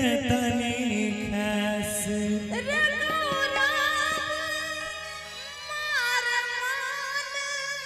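Live Indian stage song: a woman singing a long melodic line with vibrato over instrumental accompaniment. Beats are dense at first and thin out as her voice comes in about two and a half seconds in.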